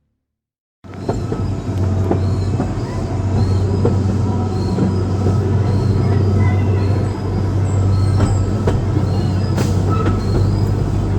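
Amusement-park rail ride running on its track: a loud, steady low rumble with wheels squealing and clicking, starting suddenly about a second in.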